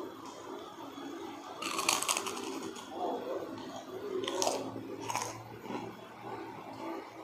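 A crisp kerupuk cracker being bitten and crunched close to the microphone: a run of crackly crunching about two seconds in, then two sharp bites a little past the middle.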